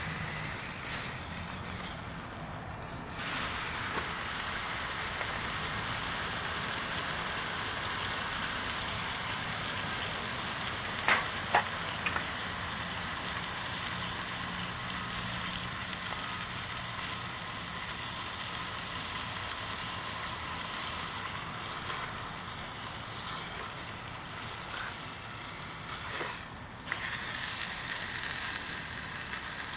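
Food sizzling in a wide, lidless pan over a wood gas stove; the sizzle jumps louder about three seconds in and then holds steady, with a couple of sharp ticks about halfway through.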